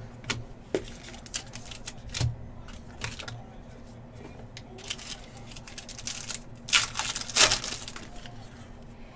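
Foil trading-card pack being opened by hand and the cards handled: scattered rustles and light clicks, with two louder crinkles of the wrapper about seven seconds in.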